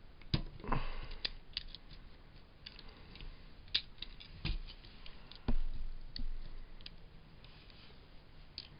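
Irregular small clicks, knocks and scrapes of metal parts and tools as a stuck center roller is worked out of a model train locomotive's chassis.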